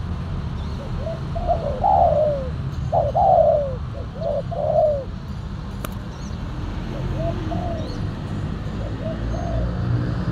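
Spotted doves cooing in repeated phrases of short arched notes, loudest in the first half and softer toward the end, over a steady low rumble.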